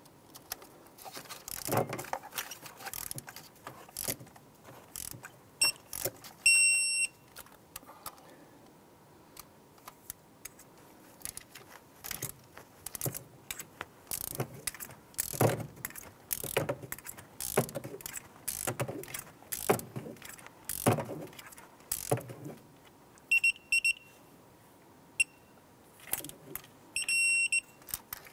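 Bolts being torqued down with a digital torque wrench, with irregular ratchet clicks and tool knocks throughout. Electronic beeps sound about six seconds in and twice near the end, short pips followed by a longer tone, as the wrench reaches its set torque of 106 inch-pounds.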